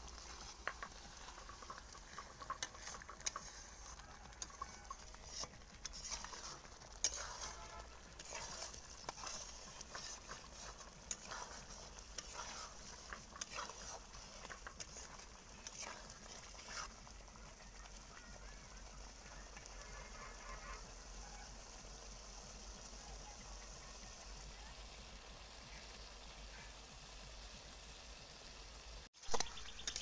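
Spice paste sizzling in oil in a pan as it is fried down and stirred for a rohu fish curry, with a spatula scraping and knocking the pan, most often in the first half. The sound drops out briefly near the end.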